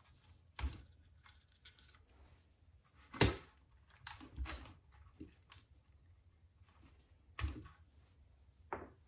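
Scattered clicks and knocks of a screwdriver, hose clamps and hoses being worked loose from an air pump and set down on a workbench. The sharpest knock comes about a third of the way in, with smaller ones before and after.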